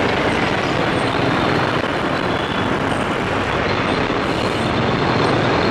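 Steady wind rush and road noise from riding a motorcycle through traffic.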